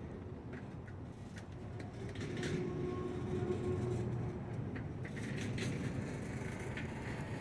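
Low, steady engine rumble with scattered faint clicks and squeaks, growing a little louder about two seconds in.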